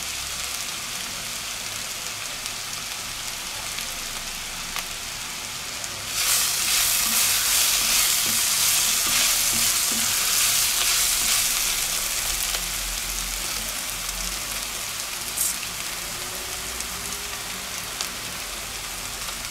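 Diced carrots, celery and onion sizzling in hot oil in a pot while being stirred with a wooden spoon. The sizzling gets louder about six seconds in and eases back over the following several seconds.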